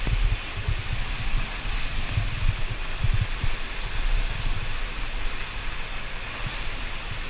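Steady rushing and splashing of an underground cave stream, with irregular low thumps and rumbles mixed in.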